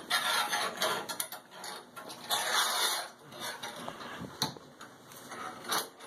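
Metal curtain clip rings scraping and clinking as they are slid along a steel conduit rod, with two sharp clicks in the second half.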